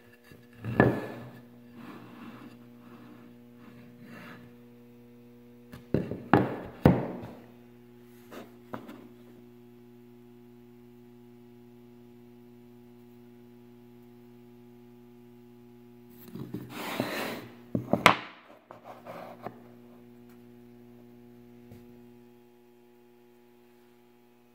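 Wooden blocks handled and set down on a work table: a mahogany board and a pine-cone resin blank knocking and thunking against the table in short clusters, about a second in, twice around six to seven seconds in, and again for a couple of seconds about two-thirds of the way through. A steady electrical hum runs underneath.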